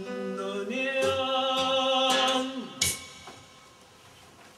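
A woman's voice holding the last sung note of a tango over piano and guitar, then a short closing chord about three seconds in that dies away.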